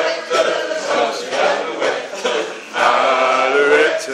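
A man's voice addressing a seated audience in a large hall, loud, with some syllables drawn out and held.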